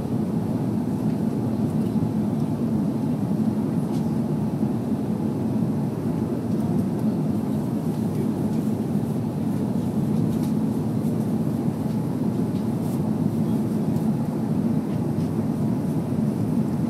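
Steady low rumble of a jet airliner's engines and rushing airflow heard from inside the passenger cabin while the plane climbs toward cruising altitude.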